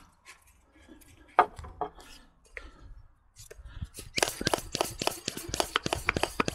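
Hand-pumped cooling-system pressure tester being connected at the header tank and pumped up to pressurise a truck's coolant system: a few scattered clicks, then a fast run of sharp clicking strokes from about four seconds in.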